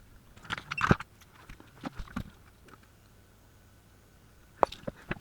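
Scattered light clicks and taps of small hand tools handling a capacitor on a circuit board during soldering: a quick cluster about half a second in, two more around two seconds, and a few sharp ticks near the end.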